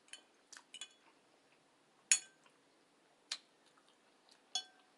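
Eating utensil clinking against a dish while tofu and vegetables are eaten: about half a dozen sharp, separate clinks, the loudest a little after two seconds in.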